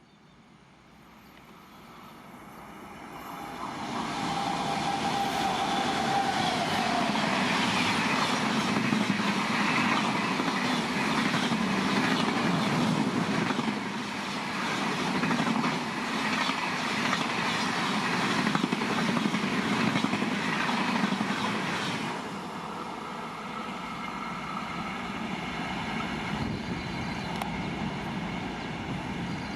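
Electric-hauled express train passing at high speed. The sound builds over the first few seconds, then stays loud with rapid, dense wheel clatter. About three-quarters of the way through it drops suddenly to a lower, steadier rumble.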